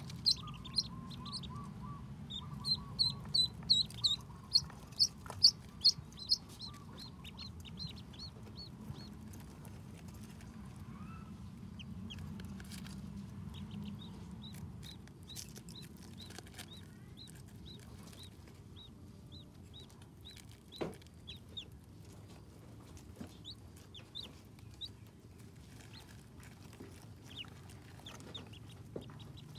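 Ducklings peeping: a rapid run of loud, high, short peeps in the first six seconds or so, then scattered quieter peeps.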